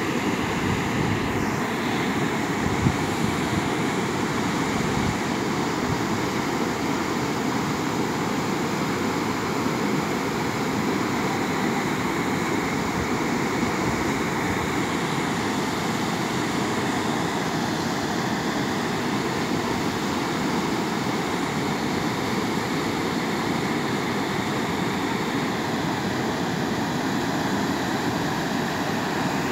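Muddy floodwater rushing steadily over and through the broken concrete low-water bridge of a swollen creek, a continuous roar of water with no pauses.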